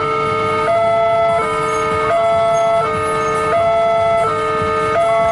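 Railway level-crossing warning alarm sounding its electronic two-tone signal, switching between a low and a high pitch about every 0.7 seconds: the crossing is warning that a train is approaching.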